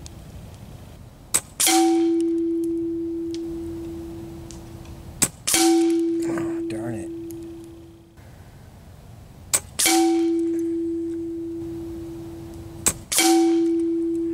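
.22 Hatsan Factor RC regulated PCP air rifle firing four shots about four seconds apart. Each shot is a sharp click, then a moment later a loud crack, followed by a clear ringing tone that fades over two to three seconds.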